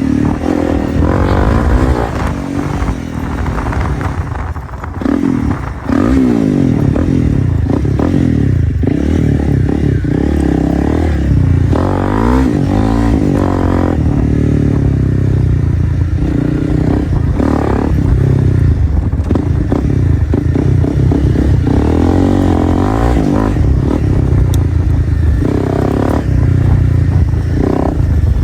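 2025 Honda CRF300L's single-cylinder four-stroke engine running through a straight-piped Dominator exhaust while being ridden, revving up and down. Pitch and loudness drop as the throttle comes off a few seconds in, then it comes back hard about six seconds in and stays loud.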